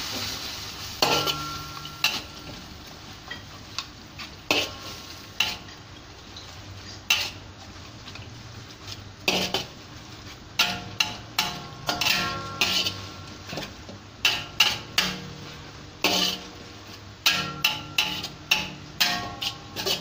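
Metal spatula scraping and knocking against a wok while stir-frying noodles, in irregular flurries of sharp clanks that each ring briefly, with a light sizzle underneath.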